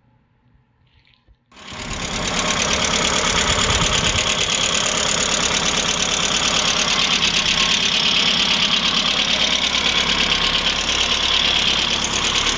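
Volkswagen Golf Mk2 GT's four-cylinder engine idling steadily, heard close up in the open engine bay; it comes in abruptly about a second and a half in.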